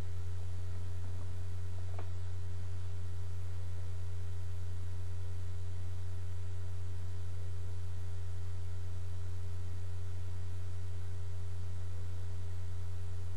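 Steady low electrical hum from a poor-quality microphone, with fainter steady tones above it; a faint click about two seconds in.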